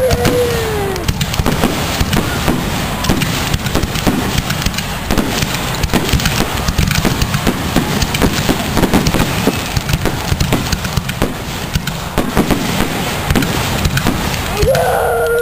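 Aerial firework shells bursting in quick succession: a dense, continuous run of bangs and crackles.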